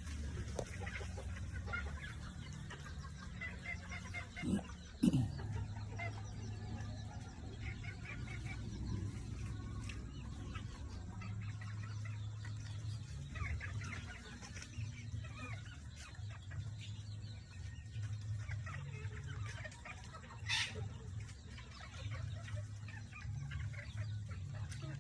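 A flock of chickens clucking, with many short calls scattered throughout over a low steady hum. A louder sound falling in pitch comes about five seconds in, and a sharp high call about twenty seconds in.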